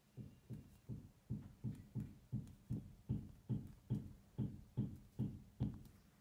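Paper bag of flour tapped again and again to shake flour out into a bowl: a steady run of about fifteen soft, low thuds, nearly three a second, stopping shortly before the end.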